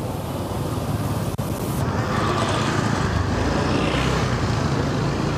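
Street traffic: a motor vehicle's engine running close by, with tyre and road noise, getting louder about two seconds in as it passes.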